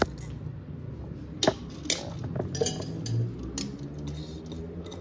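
A stainless steel mesh strainer knocks and clinks against a steel pot about five times, irregularly, as cooked rice is tipped out of it.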